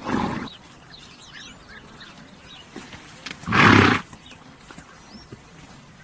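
A horse snorting twice, blowing air hard through its nostrils: a short snort at the start and a louder, longer one about three and a half seconds in. Faint bird chirps in the background.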